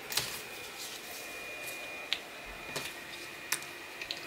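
Quiet handling sounds: a few light, scattered taps and brushes as a hand lays rose petals on a tabletop, over a faint steady hiss with a thin high whine.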